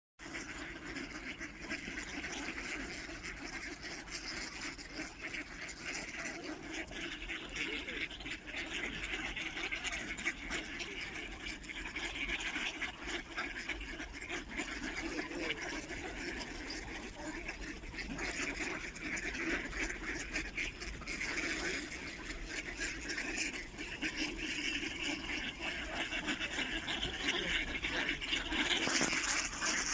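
A large flock of mallards quacking continuously, with water splashing as they swim and feed in open water; the din grows louder near the end.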